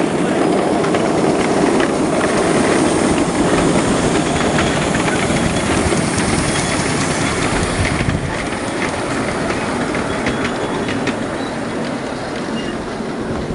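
A long train of 5-inch-gauge miniature railway wagons rolling past, a steady rumble with rapid clicking and rattling of the wheels over rail joints and points.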